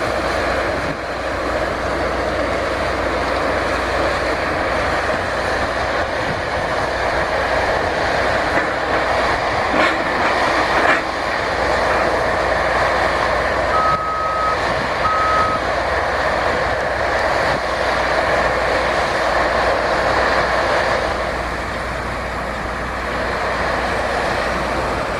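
A construction vehicle's backup alarm beeps twice about halfway through, over a steady rushing noise.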